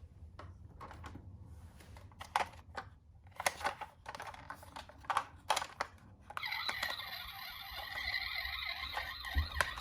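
Small toy minicars clicking and clattering as they run down a plastic slope track, in irregular sharp clicks. About six seconds in, a steady high tone comes in under the continuing clicks.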